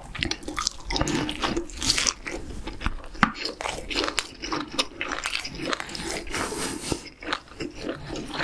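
Close-miked chewing of a full mouthful of food, with irregular crunches.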